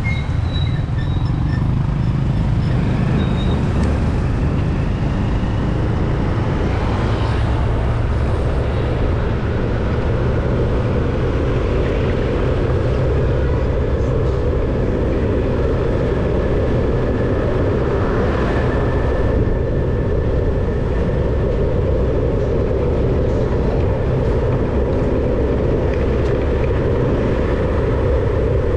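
Steady low rumble of engine and tyre noise from a vehicle driving along a town street, unchanging throughout.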